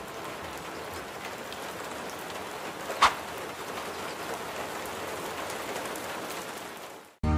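Steady rain-like hiss, with one brief whoosh about three seconds in; the hiss cuts off suddenly just before the end.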